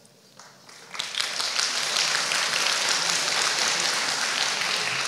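Audience applause that starts about a second in and then holds steady as dense clapping.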